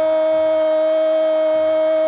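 A loud, steady horn-like tone held at one pitch without a break, rich in overtones.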